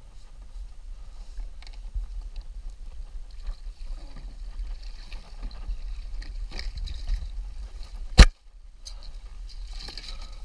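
A wire crab trap full of Dungeness crabs is hauled out of the sea by its rope and swung onto a kayak: water splashes and drips off it and the mesh clatters, over a steady low rumble. One sharp, loud knock comes near the end as the trap is brought aboard.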